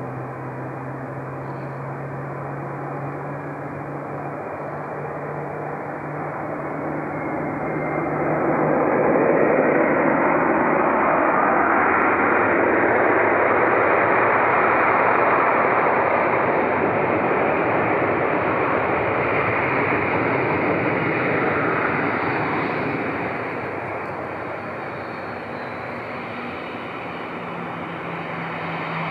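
Jet airliner engines passing: a steady rushing noise that swells about eight seconds in, stays loud for over ten seconds, then fades away.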